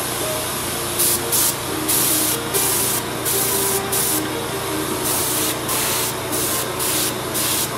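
Airbrush spraying paint in short on-off bursts of hissing air as the trigger is pressed and released, about a dozen bursts.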